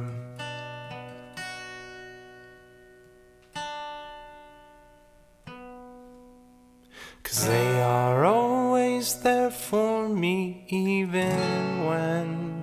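Background song: acoustic guitar chords struck a few times, each ringing out and fading. About seven seconds in, a voice starts singing over the guitar.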